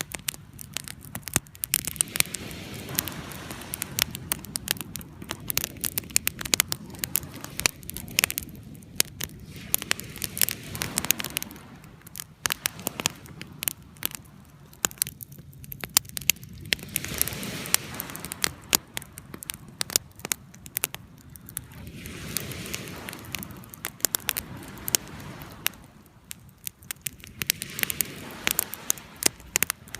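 Bonfire crackling and popping with dense, irregular sharp cracks, over a low rush that swells and fades every few seconds.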